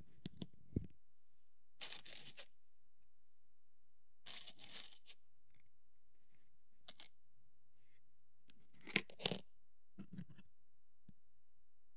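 Hobby tools working plastic miniature parts: a handful of short rasping scrapes and sharp clicks with pauses between them. The loudest are two sharp clicks near the end.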